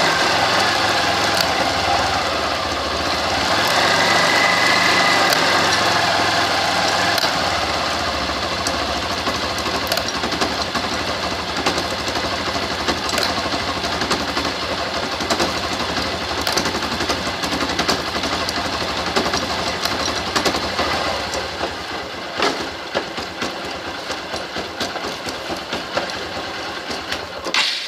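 Motorcycle engine running in first gear against the rear brake, with a sharp click ("tac") every few seconds as the drive chain's master link passes the sprocket. The click comes from a new master link fitted to a stretched chain: its pin spacing no longer matches the worn links.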